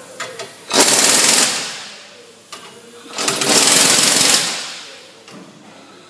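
Impact wrench hammering in two bursts of about a second each, driving the screw of a strut spring compressor to compress a front-strut coil spring further.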